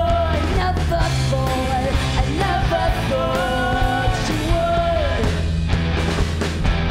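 Live rock band playing loud: electric guitars and a drum kit, with a singing voice carrying a melody that slides between notes for the first five seconds or so.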